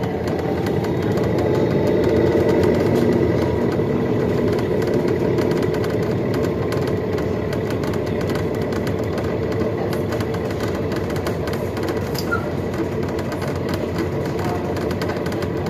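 Inside a 2021 Nova Bus LFS hybrid transit bus on the move: a steady drivetrain hum with road rumble, swelling a little over the first few seconds, then holding level.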